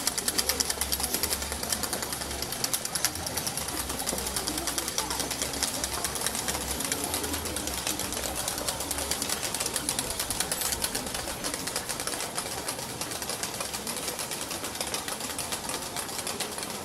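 A fast, steady clicking rattle over a low murmur of a crowd.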